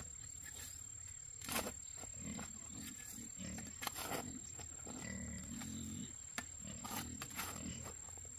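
A hoe chopping into dry soil a few times at irregular intervals, digging a hole to bury a dead snake, over a steady low rumble.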